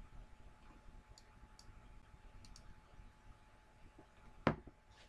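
Faint clicking of a computer mouse: a few soft, high clicks, then one much louder, sharper click about four and a half seconds in.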